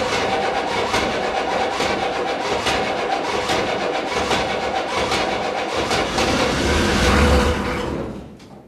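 Chevrolet CUCV M1028's 6.2-litre V8 diesel engine running, with sharp ticks recurring through the steady engine sound. A low rumble swells about seven seconds in, then the sound dies away near the end.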